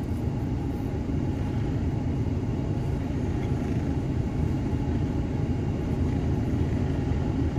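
Steady low engine rumble of an idling vehicle.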